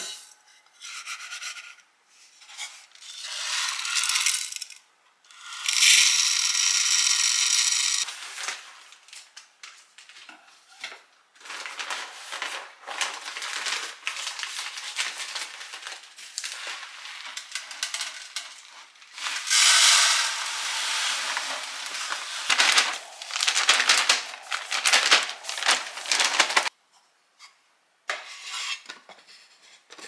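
A paper rice bag crinkling and rustling as it is opened and handled, with stretches of dry rice grains pouring in a steady hiss into a wooden rice storage box. A few light knocks near the end as the box's lid is set down.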